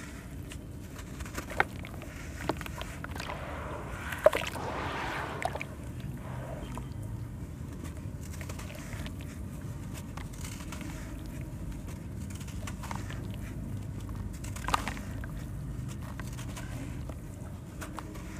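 Charcoal sand cement blocks crumbled by hand over a bucket of water: gritty crunching with sand and grit falling and splashing into the water, and a few sharp snaps, the loudest about four seconds in.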